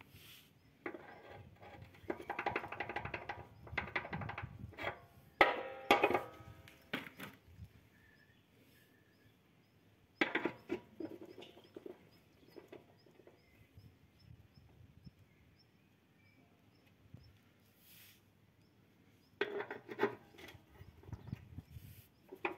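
Metal parts clinking and knocking against the steel blade spindle of a ride-on mower's deck as they are fitted, in a few short bursts of ringing clanks with quiet pauses between them.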